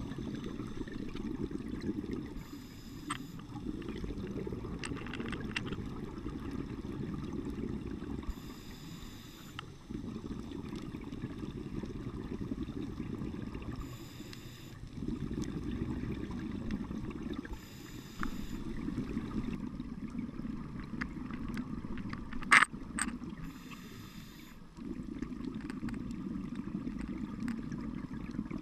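Scuba diver breathing through a regulator, heard underwater: long bubbling exhalations alternate with short hissing inhalations about every five seconds. One sharp click about two-thirds of the way through.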